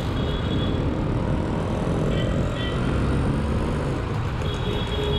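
Steady wind and road noise from riding a Bajaj Pulsar 200NS motorcycle, with the engine running underneath. A few short, faint high tones come through about two seconds in and again near the end.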